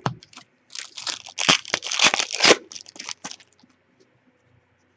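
Foil wrapper of an Upper Deck hockey card pack being torn open and crinkled. It gives a dense burst of crackling for about two seconds, then a few scattered crinkles.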